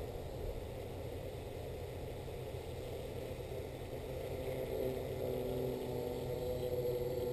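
Quadcopter's electric motors and propellers humming overhead as it comes in under auto-land. The hum grows louder and more tonal from about halfway through.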